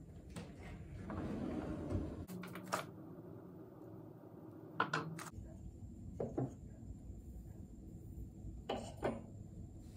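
A workbench drawer sliding open, then a few light clicks and knocks as handle materials and a metal pin rod are picked up and handled.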